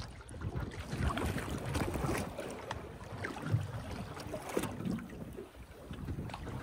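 Wind buffeting the microphone on an open boat at sea, a rough uneven rumble, with water splashing against the hull and scattered small knocks.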